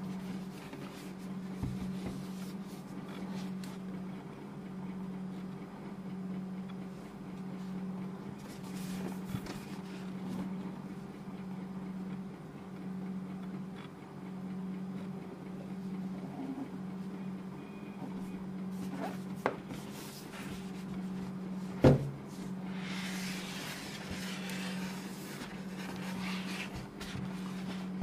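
Cardboard headset box being handled and opened: scattered light taps, one sharp knock about two-thirds of the way in, then a few seconds of cardboard sliding and rustling. A steady low hum with a slow pulse sits underneath.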